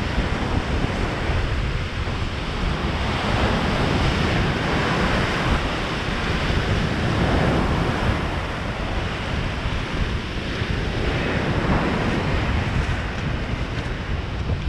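Surf breaking and washing up a sandy beach, a steady rushing wash that swells and eases, with wind buffeting the microphone.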